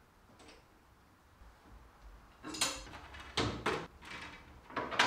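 Table saw blade guard being fitted over the blade: four or five sharp metal knocks and clatter against the cast-iron saw top, starting about halfway in after a quiet stretch.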